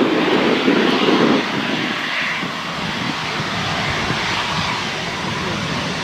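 Boeing 737 rolling out on the runway after landing: a steady rush of engine and air noise with a rough rumble from the wheels, the rumble easing about a second and a half in.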